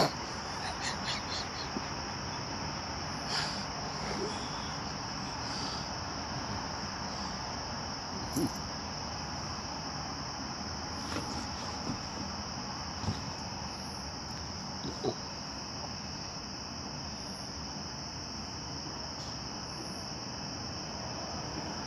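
Crickets trilling in a steady, unbroken high-pitched chorus, with a few brief taps and clicks, the loudest right at the start.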